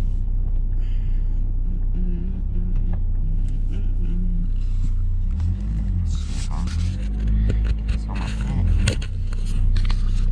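Pickup truck engine running with a steady low rumble while the truck moves slowly, its pitch rising and falling a little in the middle. Rattles and knocks come between about six and nine seconds in.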